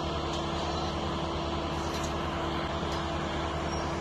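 Engine of a rubber-tyred box-girder transport-and-erection machine running steadily as the machine slowly backs away, a constant mechanical hum with no change.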